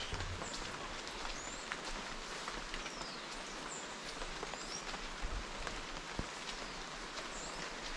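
Birds chirping, several short high whistled calls that slide up or down, over a steady outdoor hiss, with a few faint clicks.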